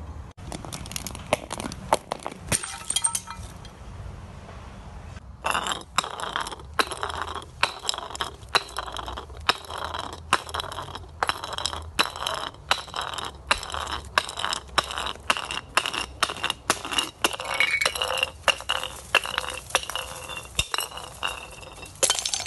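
Glass from broken bottles clinking and cracking: many sharp clinks with a high ringing tone. A few scattered clinks come first, then from about five seconds in they come steadily, a few every second.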